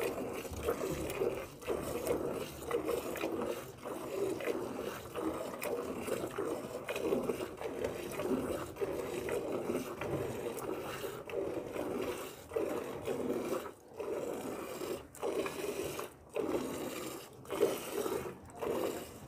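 Cow being milked by hand into a steel bucket: a rapid, steady run of milk squirts hitting the milk already in the pail. In the second half it breaks off briefly about once a second as the hands shift.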